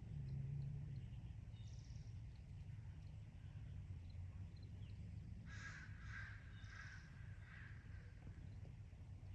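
Crow cawing four times in quick succession, a little past halfway through, over a steady low background rumble.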